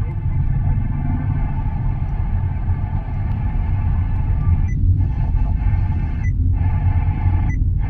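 Steady low rumble of a running vehicle, with a faint haze of steady tones above it that drops out briefly three times in the second half.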